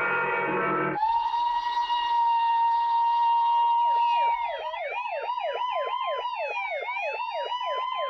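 A ringing bell chord cuts off about a second in and gives way to a steady, high whistle tone. From about four seconds a fast yelping siren, sweeping up and down about four times a second, sounds over a slower wailing siren.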